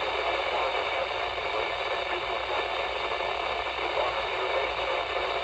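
Steady radio static: an even hiss from a receiver tuned to a weak signal, with no clear voice coming through.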